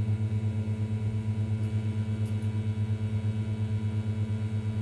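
A steady electrical hum with a fast, even flutter.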